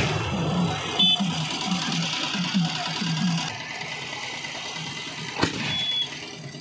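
Aerial fireworks going off: two sharp bangs, one about a second in and a louder one near the end. Underneath runs a fast, low rhythmic beat that stops about halfway through.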